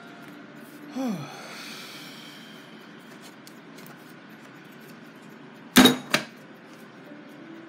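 Two sharp knocks about a third of a second apart, from a hard object striking the workbench. A brief falling tone sounds about a second in.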